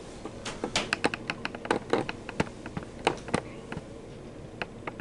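A run of irregular sharp clicks and taps, a dozen or more, thickest in the first three seconds and thinning out toward the end.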